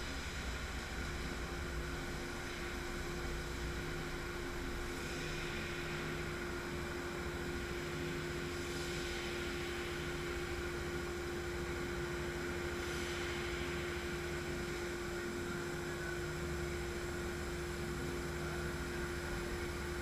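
Gantry laser cutting machine cutting sheet metal, a steady machine hum and hiss with a steady tone setting in about a second in. The hiss swells briefly a few times.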